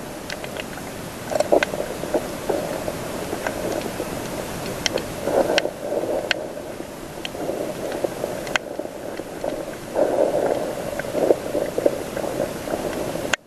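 Muffled underwater noise from a camera held beneath the sea: a rushing water hiss that swells and fades in waves, with scattered sharp clicks. It cuts off abruptly near the end.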